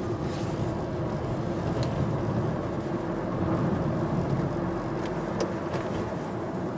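Inside the cabin, a 2016 Hyundai Sonata's four-cylinder engine and tyre noise during gentle acceleration, a steady hum with a slight swell in the middle. The engine is held to low revs in limp mode, the throttle cut back by a knock-sensor fault, yet it runs smoothly with no audible misfire.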